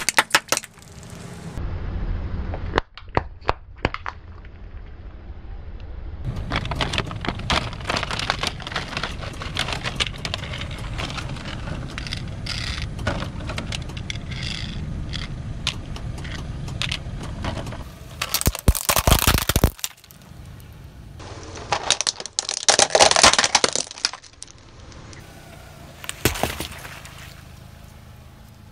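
A car tyre crushing assorted objects in a run of short clips, small plastic sauce cups among them. The sound is a series of sharp cracks, crunches and breaking plastic, with quieter stretches between them and louder clusters of cracking after the middle.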